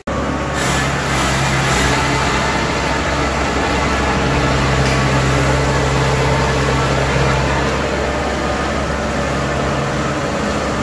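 Kubota combine harvester's diesel engine running steadily at a constant speed, a low even hum.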